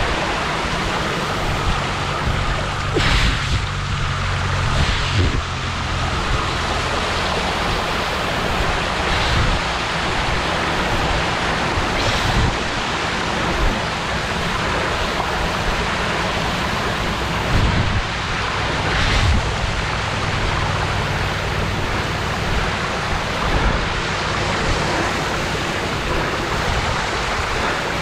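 Recumbent trike wheels ploughing through shallow floodwater, throwing up spray: a steady rushing splash with several louder surges.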